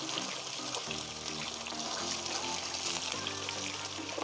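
Plantain slices shallow-frying in hot oil in a pan, a steady crackling sizzle, under background music of held low chords that change every second or so.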